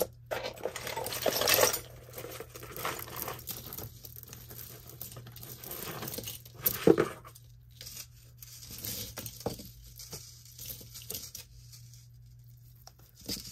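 Costume jewelry (metal chains, glass beads and faux pearls) clinking and rattling as hands rummage through a pile of it on a cloth, in irregular bursts, loudest in the first two seconds and again about seven seconds in.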